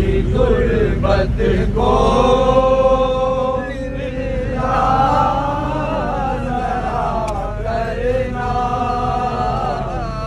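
Male voices chanting in long, held, wavering notes, with short breaks about four and eight seconds in, over a steady low rumble.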